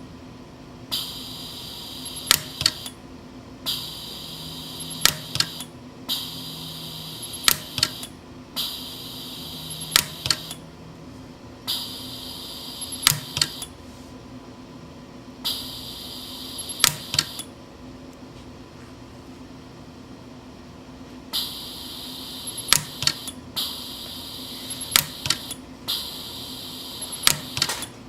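Pulse arc micro welder firing on a gold dental crown: a sharp snap for each weld pulse, in clusters of two or three every couple of seconds, each cluster inside a steady high hiss that starts just before it and stops soon after. Metal is being added to build up a crown's contact.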